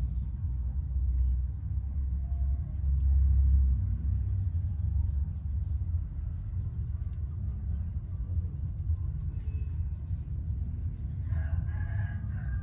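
A steady low rumble, with a rooster crowing once near the end, one call about a second and a half long.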